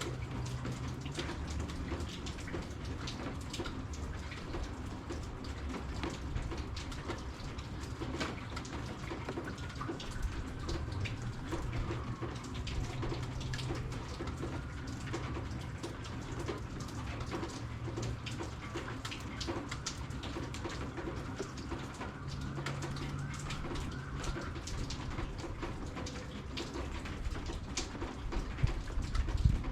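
Rain falling, with many separate drops ticking close by and faint bird calls in the middle of the stretch, over a low steady hum. A single loud knock comes near the end.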